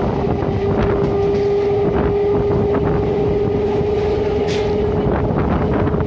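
Old Indian Railways suburban EMU train on the run, its single-phase traction motor equipment giving a steady whine that creeps slightly up in pitch, over wind on the microphone and occasional clacks of the wheels on the rails.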